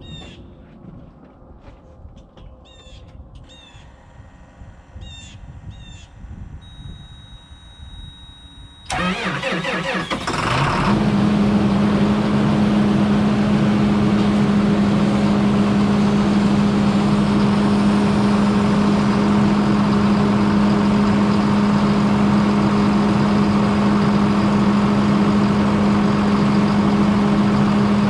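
Farm tractor engine cold-started: after a quiet stretch with birds chirping and a steady high warning tone, about nine seconds in the starter cranks it for about a second and a half, it catches and settles into a steady idle to warm up.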